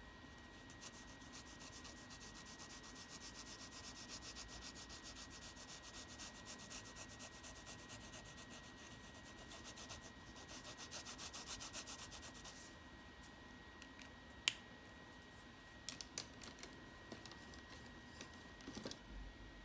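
Coloring in on paper: fast, even back-and-forth strokes that make a faint dry scratchy rubbing, stopping about two-thirds of the way through. Later comes one sharp click, the loudest sound, and a few light taps near the end.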